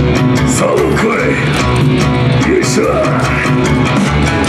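Loud rock-style YOSAKOI dance track with guitar over a steady drum beat.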